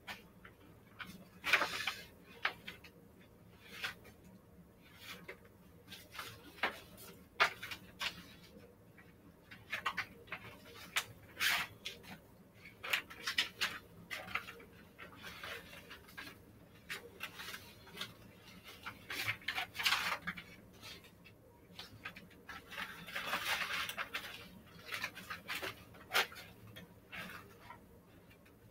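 Papers and books being handled and set down on a shelf: irregular rustling with scattered light knocks and taps.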